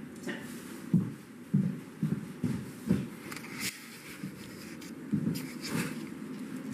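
Footsteps on a bare floor, a string of dull thumps about two a second, with some rustling as the camera is carried.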